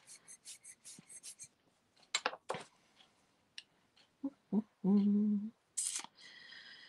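Rubber bulb air blower squeezed rapidly, giving a quick run of short puffs of air, about five a second, that stops after a second and a half. A few sharp clicks follow, and about five seconds in there is a short hum from a person's voice.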